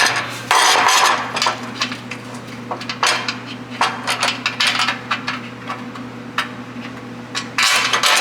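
Metal clinking and scraping of bolts, nuts and a steel bracket being handled and fitted by hand, in irregular clusters of sharp clicks, over a steady low hum.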